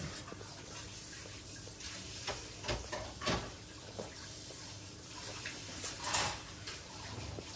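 A senior dachshund eating soft homemade food from a bowl: irregular wet eating noises, the loudest about six seconds in.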